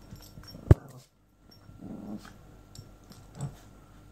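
Two dogs growling at each other in rough play. A single sharp knock about three quarters of a second in is the loudest sound, followed by a moment of dead silence.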